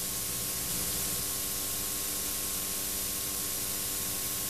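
Steady hiss with a faint, even hum underneath: the background noise of an old VHS tape transfer, with no knocks or other events.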